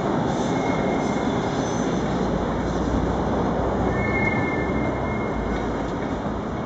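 Passenger train rolling along the station tracks: a steady rail rumble, with faint high wheel squeals about half a second in and again around four seconds in.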